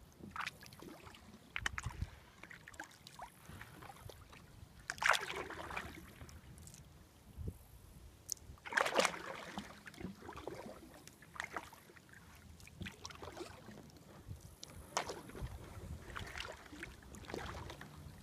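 Kayak paddle strokes: the blade dipping and splashing in the water at uneven intervals, with two louder splashes in the first half.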